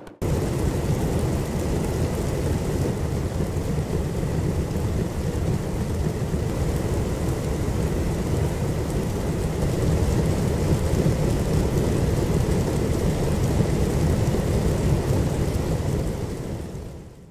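Many small motors inside rows of sealed cardboard boxes, each box knocking and rattling from within, merging into a dense, even low rattle like heavy rain on cardboard. It fades out near the end.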